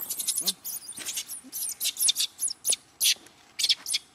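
Long-tailed macaques screaming: a rapid run of short, very high-pitched squeals, about a dozen in four seconds.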